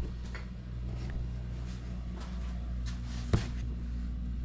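Steady low hum with light rustling and one sharp click a little over three seconds in.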